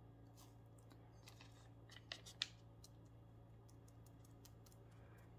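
Faint, scattered clicks and light taps from hands working on a painted glass bottle with a foam sponge brush, two slightly louder clicks about two seconds in, over a low steady hum.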